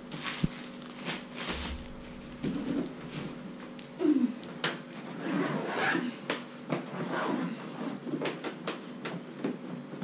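Knocks, clicks and rustling as a hard-shell suitcase and a plastic packet are handled: hands working on the case's ridged shell.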